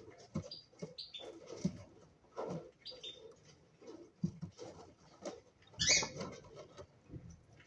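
Cockatiels giving several short, high chirps, the loudest about six seconds in, over scattered scratching and tapping.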